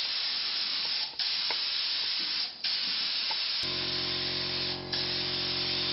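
Air-fed gravity-feed spray gun hissing as it sprays primer, in long passes with brief breaks where the trigger is let off. A steady low hum comes in about three and a half seconds in.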